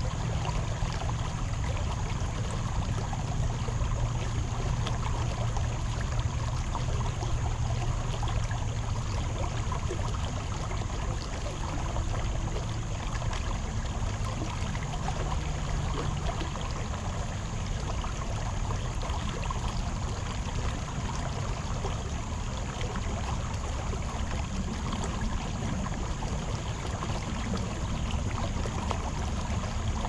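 Shallow rocky creek running over stones in a riffle: a steady rush of water with a deep low rumble.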